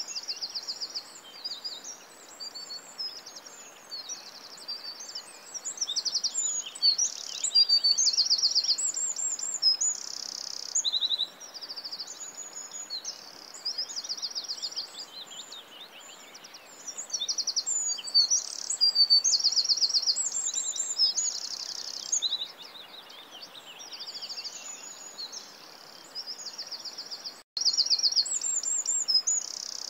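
Many small birds chirping and singing together, with rapid, repeated trills and short chirps over a faint steady hiss. The sound drops out for an instant near the end.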